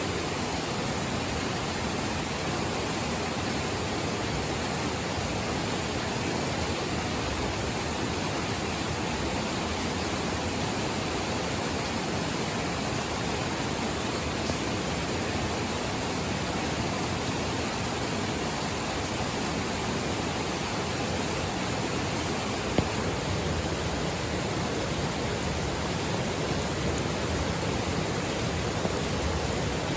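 Steady, even rushing of water, with one faint tick about 23 seconds in.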